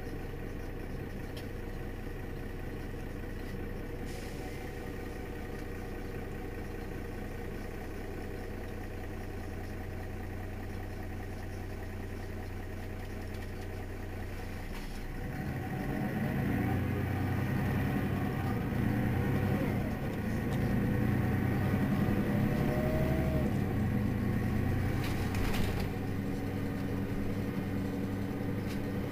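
Mercedes-Benz Citaro city bus diesel engine idling steadily. About halfway through the engine noise grows louder and rougher for about ten seconds. A short sharp noise comes near the end, and then it settles to a steady idle again.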